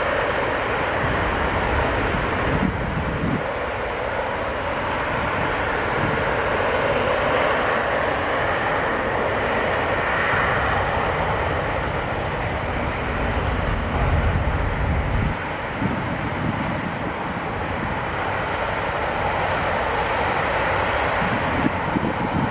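Steady jet noise from a Boeing C-17 Globemaster III's four Pratt & Whitney F117 turbofan engines running on the ground, as the transport reverses under its own thrust. The sound changes abruptly twice, about three seconds in and again near the middle, where the recording is cut.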